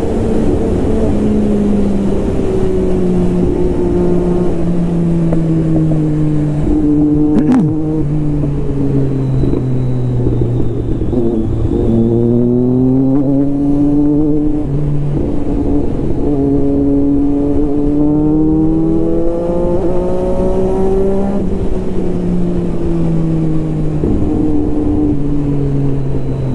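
Motorcycle engine on the move, its pitch rising and falling with the throttle and jumping in steps at gear changes. There is a single click about seven seconds in.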